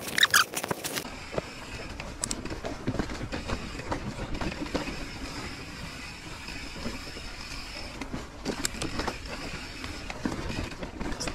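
Mountain bike rolling down a dirt trail: a steady rumble of tyres and wind on the microphone, with frequent small knocks and rattles as the bike rides over stones and roots.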